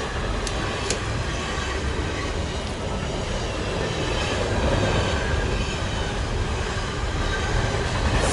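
Steady rushing machine noise, like a running blower, with two light metallic clicks about half a second and a second in.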